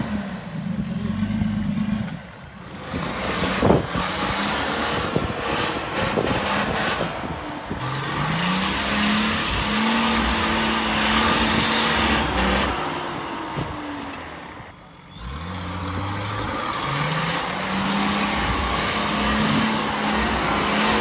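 Nissan Patrol 4x4's diesel engine revving under load off-road: the pitch climbs and holds high several times, dropping off briefly twice.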